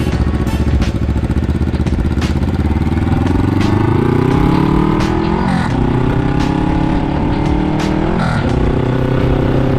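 Suzuki GS400 parallel-twin running through an SP 'Charao-kan' suikomi-style exhaust with the silencer fitted, accelerating under way. The revs climb, drop at a gear change about five and a half seconds in, climb again to a second shift a little past eight seconds, then hold steady.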